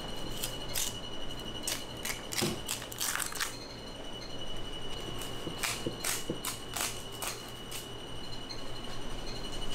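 Irregular sharp clicks and knocks of knives, utensils and trays being handled while a large tuna is cut up, over a steady low hum and a faint steady high tone.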